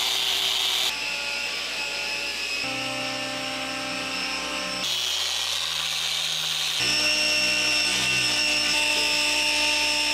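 Corded electric orbital polisher with a foam pad running steadily against a car's painted door panel while it is polished. The motor tone jumps abruptly about four times.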